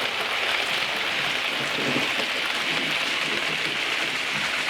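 Model train with Pullman coaches running past on the track: a steady rushing rattle of metal wheels on the rails.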